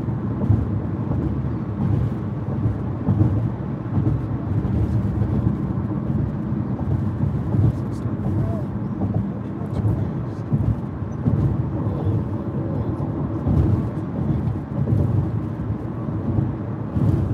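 Steady low rumble of tyre and engine noise inside a car's cabin at highway speed.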